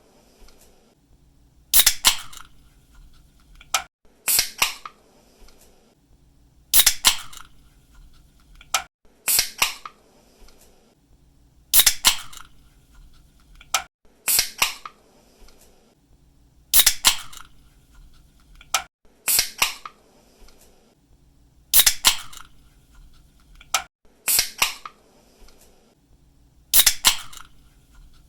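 Pull tab of an aluminium drink can snapping open with a sharp crack, followed by smaller clicks. The opening repeats at even intervals about every five seconds.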